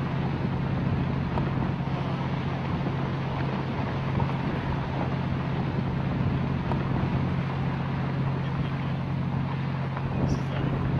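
A sport-fishing boat's engine running with a steady low hum, with wind noise rushing over the microphone.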